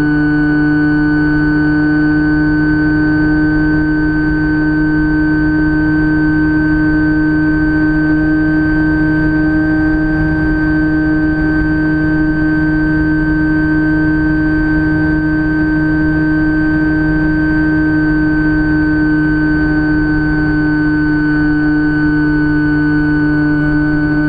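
Electric motor and pusher propeller of a Phantom FX-61 flying wing whining steadily in flight, with air rushing past. The pitch holds almost constant throughout, as at a steady cruise throttle.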